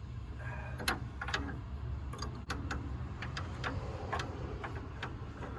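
Scattered metallic clicks and taps of hand tools working on a pickup's front suspension, irregularly spaced about one or two a second, over a steady low hum.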